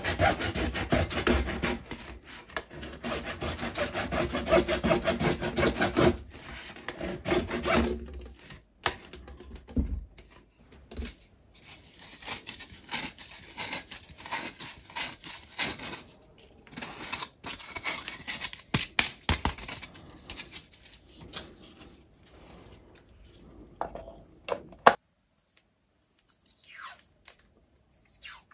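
Hacksaw cutting through a plastic duct pipe in quick back-and-forth strokes for about the first eight seconds. After that, the cut-off ring of plastic is handled and turned, giving scattered rubbing, scraping and light taps.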